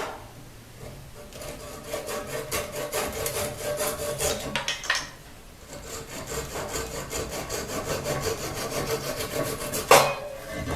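Rapid back-and-forth strokes of a hand tool scraping across maple, trimming protruding pieces of the mallet's joint flush. The strokes come in two runs with a short pause about five seconds in, and a single sharp knock comes near the end.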